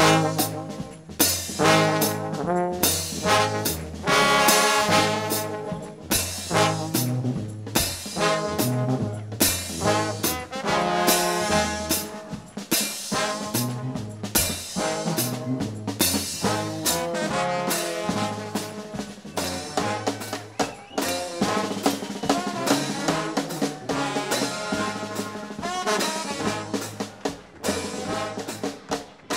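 Trombone shout band playing gospel music: a massed trombone section carrying the tune over drums and a moving bass line.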